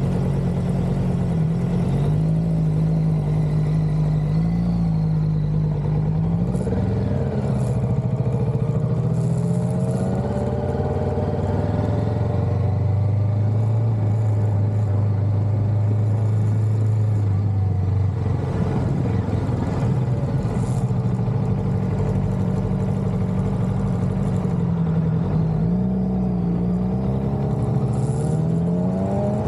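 Kawasaki Vulcan S 650's parallel-twin engine running under way. Its pitch climbs as it accelerates through the gears, settles to a steady lower note while cruising, then climbs again near the end.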